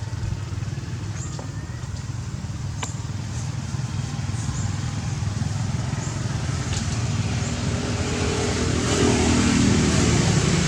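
A motor's low rumble, growing louder near the end, with a few faint clicks.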